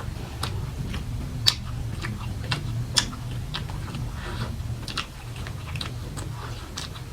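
Close-miked chewing: wet mouth clicks and lip smacks at an irregular pace, with sharper clicks about one and a half and three seconds in, over a low steady hum.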